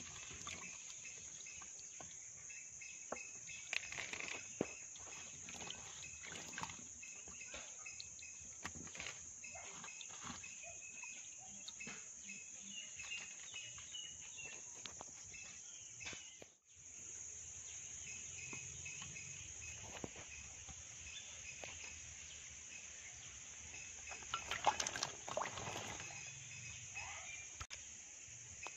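Steady high-pitched insect chorus, with scattered soft clicks and splashes of olives being rubbed by hand in water in a clay pot. The chorus breaks off for a moment about two thirds through, and there is a louder noise near the end.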